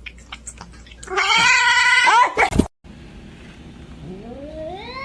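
A cat meowing: a long, loud drawn-out meow about a second in. Near the end another long meow slides steadily upward in pitch.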